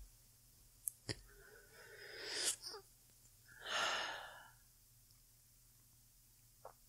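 Slow, sleepy breathing close to the microphone: one long breath drawn in, swelling over about a second, then let out and fading away. A couple of soft mouth clicks come before the breath, and one more near the end.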